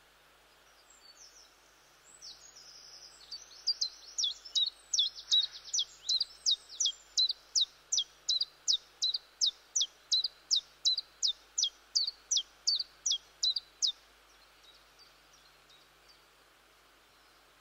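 Common chiffchaff singing: a long run of about two dozen sharp, high, falling notes, a little over two a second, starting about three and a half seconds in and stopping around fourteen seconds. A few fainter notes come before and after, over a low steady hiss.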